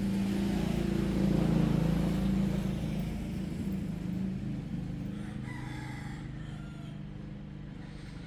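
A rooster crows once, about five and a half seconds in, after a low rumble that swells and fades over the first four seconds or so.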